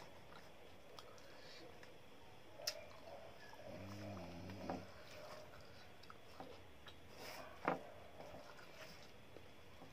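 Close-miked eating by hand: fingers mixing rice and dal on a steel plate, with chewing and small ticks. A sharp click about a quarter of the way in and a louder one about three-quarters of the way through, and a brief hum about four seconds in.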